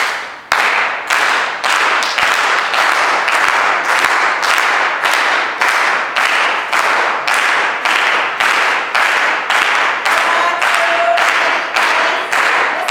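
A crowd clapping in unison, keeping a steady beat of about two claps a second as the foundation rhythm of a participatory drum-and-dance piece.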